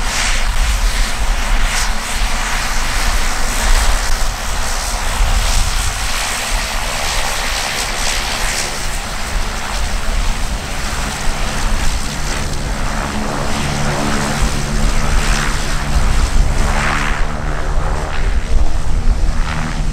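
Cessna 208B Grand Caravan's single PT6A turboprop engine running as the plane taxis: a loud, steady turbine hiss and propeller noise over a low rumble. An even, humming propeller tone comes through more clearly from about twelve seconds in.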